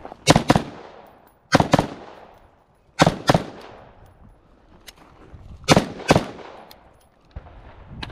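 Gunshots fired in quick pairs: four double-taps, each pair about a quarter second apart and the pairs a second or two apart. Each shot has a short echo trailing off.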